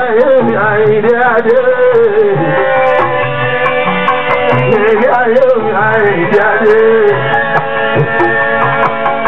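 Live Fuji music: a singer's wavering, ornamented vocal line over hand drums and percussion, with a steady beat of sharp drum strokes.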